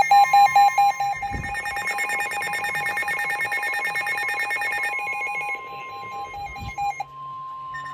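Several NOAA weather radios sound their alert alarms together for a Severe Thunderstorm Warning: rapid trilling and repeated electronic beeps over the steady 1050 Hz warning tone. Layers of beeping drop out about five and seven seconds in, leaving the single steady tone.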